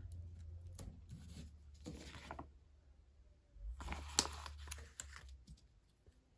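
Faint rustling and peeling of paper sticker sheets as stickers are lifted off their backing and pressed onto paper, in two short stretches, the second starting a little under four seconds in.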